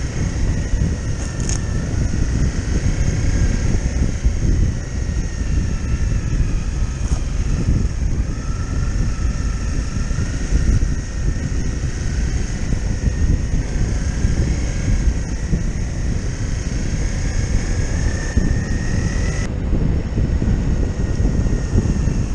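Honda CRF250L trail bike's single-cylinder engine running on the move, its note rising and falling with the throttle, under heavy wind buffeting on the microphone. The sound changes abruptly about three-quarters of the way through.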